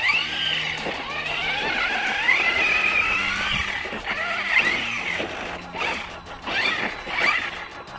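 Brushless electric motors of two RC monster trucks whining under load as they push against each other, the pitch wavering up and down with the throttle, over background music.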